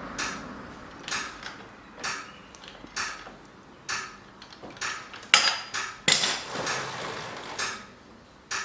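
Sharp metallic clicks and knocks, roughly one a second, from work on a motorcycle's rear wheel and chain, with two louder knocks about five and six seconds in.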